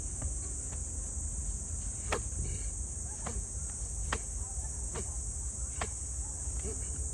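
Steady, high-pitched chorus of insects shrilling in the forest, with about five sharp clicks or knocks spaced roughly a second apart in the middle.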